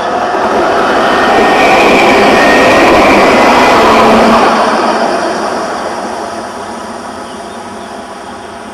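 A tram passing by on its rails: the running noise swells to its loudest about two to four seconds in, then fades away.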